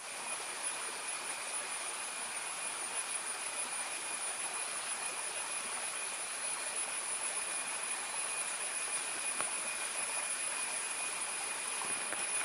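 Steady chorus of forest insects: an even hiss carrying two unbroken high, whining tones, one far above the other.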